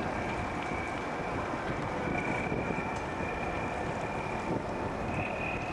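A boat's engine running steadily, with wind buffeting the microphone and a thin high whine over it that rises slightly in pitch near the end.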